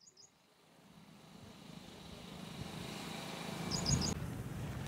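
Outdoor ambience fading in: a steady low rumble that grows louder, with a small bird chirping a quick three-note call at the start and again about four seconds in.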